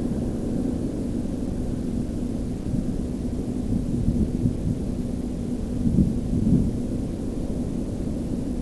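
Hurricane-force wind buffeting the microphone: a steady low rumble that swells in a gust about six seconds in.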